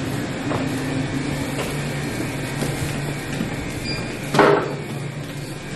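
Steady low hum of convenience-store background noise, with a brief loud rustling burst about four seconds in.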